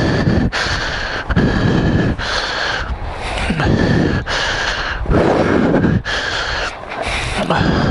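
A person breathing hard and heavily close to the microphone, panting in and out about once a second.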